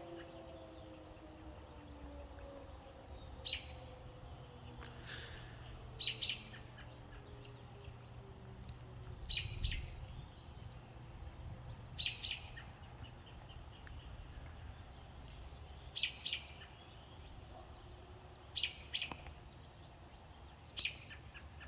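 A bird chirping in short, sharp calls every few seconds, sometimes two in quick succession; these are the loudest sounds. Underneath, a distant outdoor warning siren winds down, its tone falling and fading out over the first several seconds.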